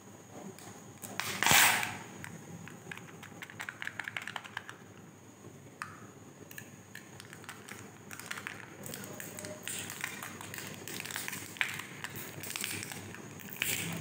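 Plastic surprise-egg capsule being handled and its foil seal lids peeled off by hand: crinkling and crackling with small plastic clicks, and one louder tearing rustle about a second and a half in.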